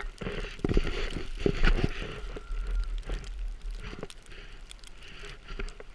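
Wind buffeting the microphone of a body-worn action camera on an open chairlift, with scattered crackles and knocks of jacket and glove rustle, most of them in the first two seconds.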